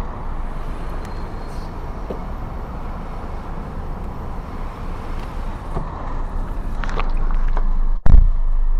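Steady street-traffic noise in a car park. Near the end comes a sudden loud thump, then a steady low hum from inside the car.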